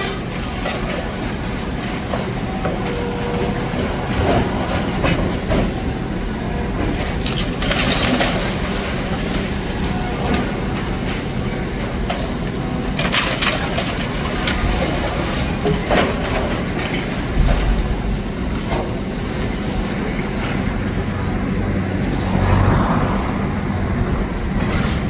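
Demolition excavator working: its engine runs steadily under metallic clanking, with several sharp cracks of rubble and masonry being broken or moved.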